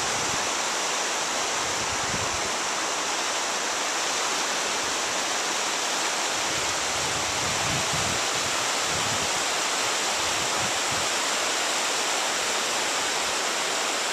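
Steady rushing of a shallow river running over stones and rapids.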